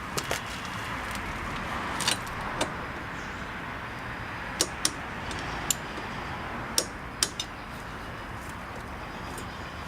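Scattered sharp metallic clicks and clinks, irregular and a second or so apart, from tools and bolt hardware being handled, over a steady background hiss.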